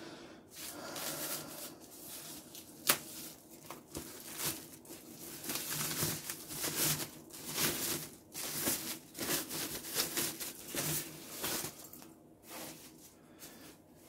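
Packaging rustling and crinkling as the portable speaker is handled and unwrapped, in irregular bursts with one sharper crack about three seconds in.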